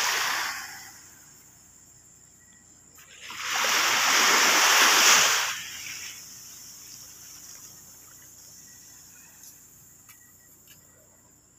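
Sea waves washing up the shore: the tail of one wash fades out at the start, and a single loud surge of surf swells up about three seconds in and dies away about two seconds later. The sea is rough.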